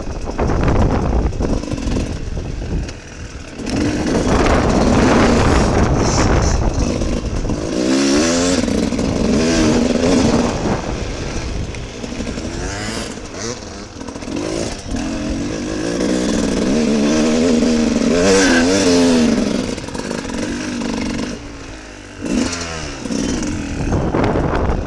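Dirt bike engine revving hard and easing off again and again as it is ridden, its pitch rising and falling. The throttle shuts briefly about three seconds in and again near the end.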